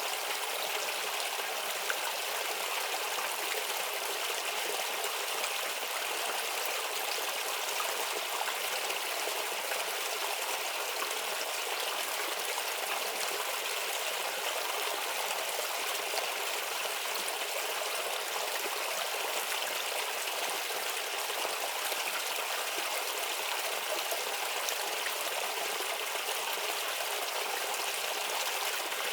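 A small babbling stream flowing steadily, a continuous trickling rush of water.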